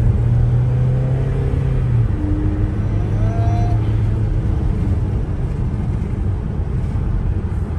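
Steady engine and road rumble of a car being driven, with a low hum that is strongest in the first couple of seconds and eases after that.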